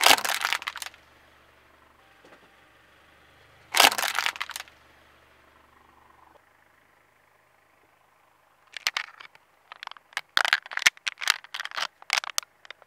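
Aluminium drink can crushed flat under a car tyre: two loud crunches about four seconds apart. From about nine seconds in, the flattened can crackles and crinkles as a hand picks it up and handles it.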